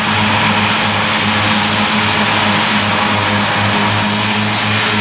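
Claas Cougar 1400 self-propelled mower working through grass, its diesel engine and spinning disc mower units making a steady, loud drone with an even rushing noise over it.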